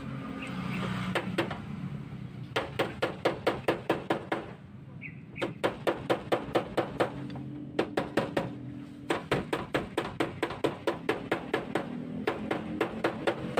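Panel-beating hammer tapping rapidly on the dented sheet-metal rear body of a Toyota Alphard, in runs of about ten quick strikes, roughly six a second, with short pauses between. The dent is being knocked out.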